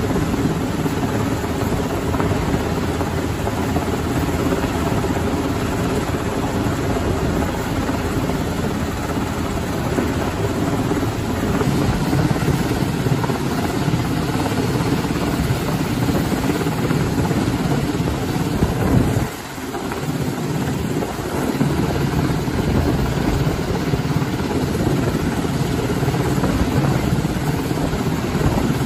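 Coast Guard MH-60T Jayhawk helicopter hovering overhead during a hoist: loud, steady rotor and turbine engine noise, dipping briefly about two-thirds of the way through.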